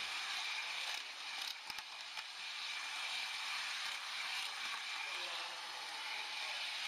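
H0 model train running along the track, heard from the camera riding on it: a steady rushing rattle, with a few sharp clicks about one and a half seconds in.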